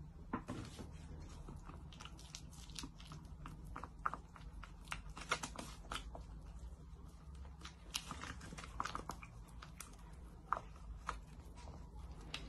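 Silicone spatula stirring melted chocolate and cocoa butter in a plastic tub, making faint, irregular scrapes and small taps against the container.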